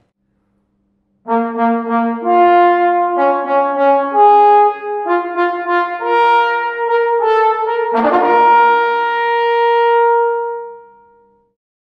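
Unaccompanied tenor trombone with F attachment, a handmade Hölle instrument, playing a short phrase of connected notes that moves up into the upper register. About eight seconds in, a sharply accented note leads into a long held high note that fades away.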